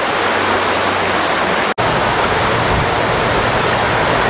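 Steady rush of shallow river water running over cobbles and spilling across low stacked-rock barriers, with a momentary break a little under two seconds in.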